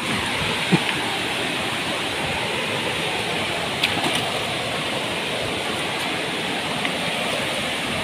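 Waterfall cascading over rock ledges into a pool: a steady, even rush of water.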